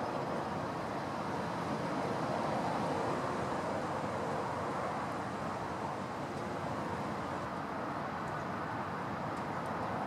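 Strong wind blowing steadily, an even rushing noise with no breaks.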